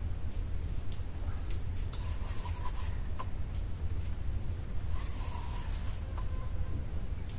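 Fishing reel being cranked, a scratchy rasping with scattered clicks, as a hooked fish is reeled in on a hard-bent rod.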